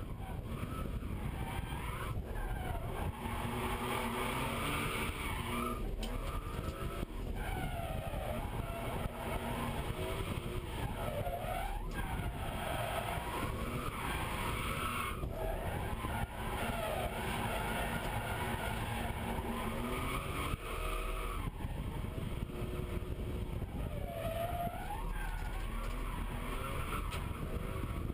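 BMW E36 M3's straight-six engine revving up and down over and over during drifts, heard from inside the cabin, with tyres skidding.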